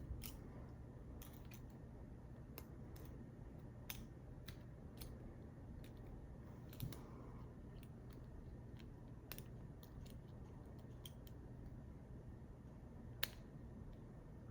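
Faint, irregular small metallic clicks of a lock pick and tension wrench working the pins in the core of a PacLock 90A-Pro padlock, with one sharper click near the end.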